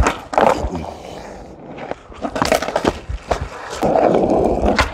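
Skateboard wheels rolling over rough asphalt, with a series of sharp wooden clacks as the board's deck and tail hit the pavement. The rolling rumble drops away after the first moment and comes back about four seconds in.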